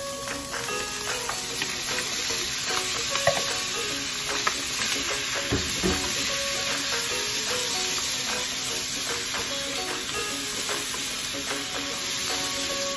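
Green bell pepper, bamboo shoots and pork sizzling in oil in a nonstick frying pan, stirred with a wooden spatula that knocks and scrapes against the pan a few times.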